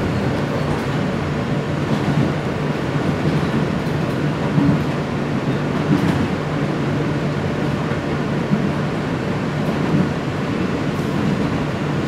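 New York City subway car running on the track, heard from inside the car as it pulls out of a station: a steady rumble of wheels on rail, with a few faint clicks.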